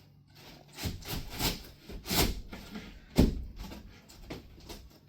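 Cardboard rubbing and scraping as a folded cardboard piece is slid into the slots of a cardboard table frame, with several bumps and one sharp knock about three seconds in.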